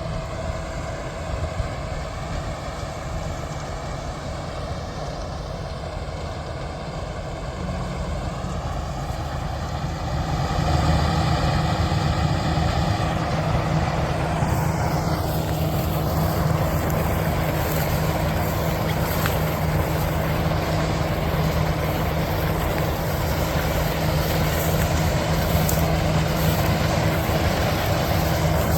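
Combine harvester running steadily, its engine growing louder about ten seconds in, with a hiss added to the drone a few seconds later.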